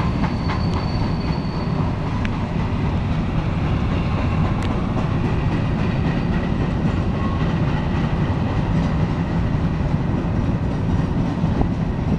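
Freight cars of a woodchip train rolling past, a steady rumble with the wheels clacking over rail joints. A faint high squeal stops about two seconds in.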